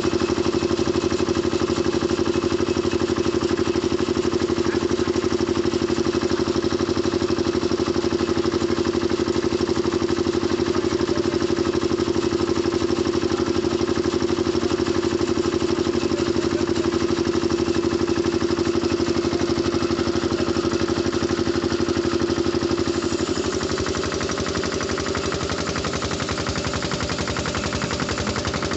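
Sawmill machinery running: a steady hum with a fast, even throb, a little quieter from about 23 seconds in.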